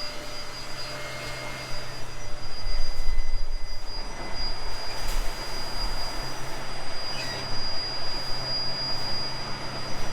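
Heavy machinery running steadily: a low drone with a thin, steady high whine over it and a rumbling hiss.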